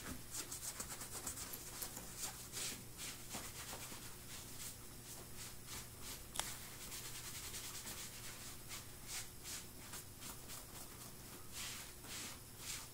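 A sponge rubbed in quick strokes over a black leather English riding boot, a soft scratchy swishing that comes in runs of several strokes a second; one sharp click about six seconds in.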